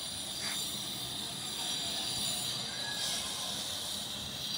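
Steady outdoor background noise, a hiss with high-pitched bands, with a couple of faint short chirps.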